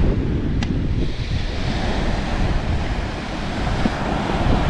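Surf breaking and washing up the beach, a hiss that swells about two seconds in, with wind buffeting the microphone in a low rumble.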